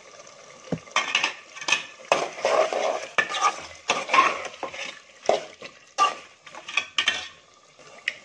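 A metal spoon stirring chicken pieces in a metal pot, scraping and clinking against the pot in irregular strokes. It starts about a second in and stops near the end.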